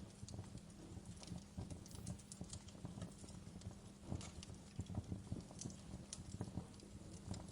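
Fireplace crackling: faint, irregular small pops and snaps of burning wood, several a second, over a low steady rumble.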